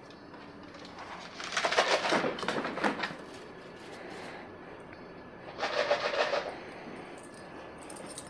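A plastic tub of dog treats being shaken, rattling in two bursts: a longer one about a second and a half in and a shorter one a few seconds later.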